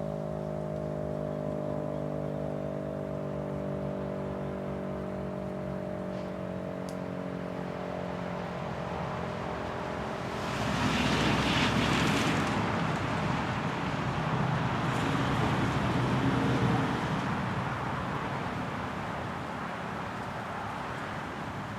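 Federal Signal RSH-10A Thunderbeam siren winding down: its tone sinks slowly and fades out about ten seconds in. A car then passes close by, a loud rush of tyres and engine that rises and dies away over several seconds.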